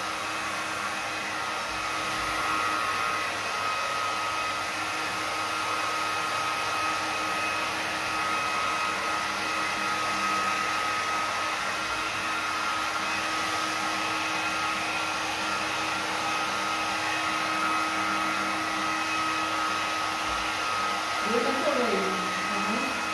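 Hand-held hair dryer running steadily, blowing wet acrylic pour paint across a canvas: an even rush of air with a steady whine on top.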